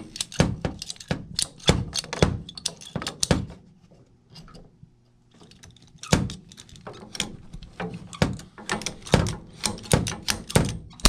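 PVC condensate drain pipe being cut and handled for a new clean-out: a fast, irregular run of sharp plastic clicks and knocks, with a pause of about two seconds some four seconds in.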